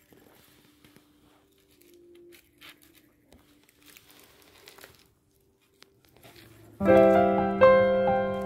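Faint scattered clicks and rustles, then about two-thirds of the way in, piano music starts loudly and runs on.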